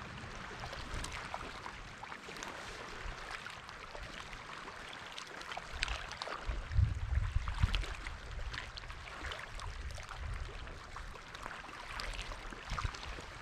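Rustling and small clicks of gloved hands handling gear and a freshly caught catfish at the water's edge, over a steady outdoor hiss. Low rumbling thumps on the microphone come about seven seconds in.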